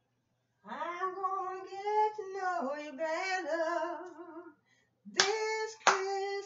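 A woman singing: one long held note, then wavering notes with vibrato, and after a short pause two short loud notes near the end.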